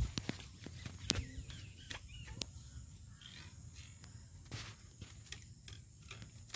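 Scattered small clicks and rustles of twine being handled and wound around a bamboo stake, with faint chirps in the background.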